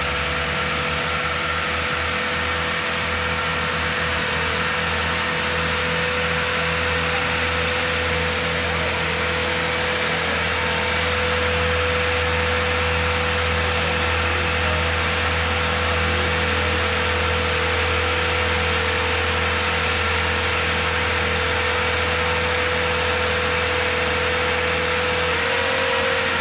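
Marine straddle crane (boat travel lift) engine running steadily as it lowers a boat on its slings, with a steady whine over the engine hum; the whine steps up slightly in pitch near the end.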